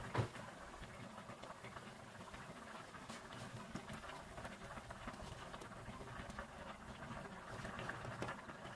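Faint, scattered soft taps and small splashes as chunks of vegetable are dropped by hand into a pot of simmering chicken broth, with a sharper knock about a quarter-second in and another near the end.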